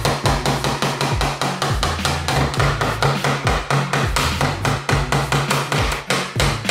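Hammer blows on a small wooden kit box, a fast, even run of sharp strikes nailing the box together. Background music with a steady bass line plays underneath.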